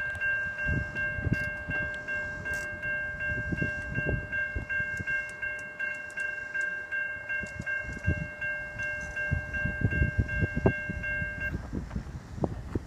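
Railroad grade-crossing warning bell ringing steadily while the crossing gates lower, cutting off suddenly near the end once the gates are down. Wind gusts buffet the microphone throughout.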